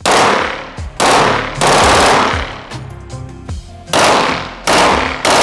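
Full-auto fire from a 9mm machine pistol in short bursts: about six bursts, each cut off after a fraction of a second, with pauses of up to a couple of seconds between them.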